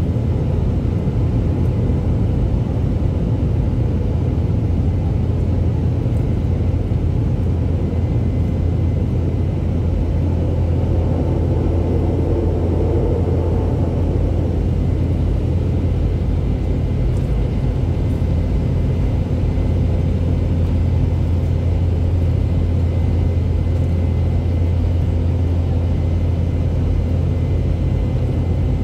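Boeing 717-200 cabin noise during the climb after takeoff: a steady low rumble from its rear-mounted Rolls-Royce BR715 turbofan engines.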